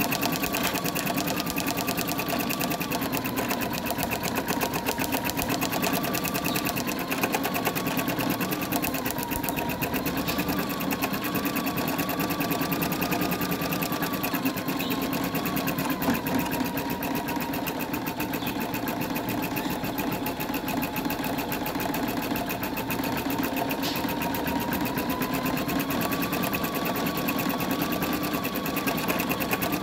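Embroidery machine stitching lettering into a face washer: rapid, even needle strokes run steadily over a faint whine that wavers slightly in pitch.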